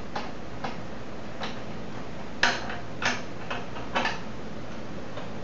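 An L-shaped wrench clicking against the metal bolts of a screen printing press's palette as they are tightened: a string of separate metallic ticks at an uneven pace, the loudest about two and a half seconds in.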